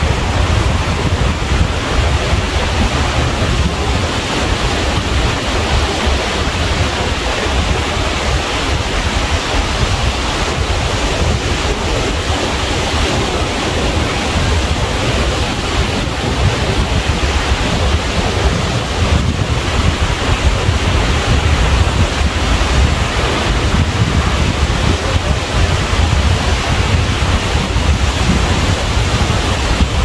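Ocean surf washing steadily, with wind buffeting the microphone.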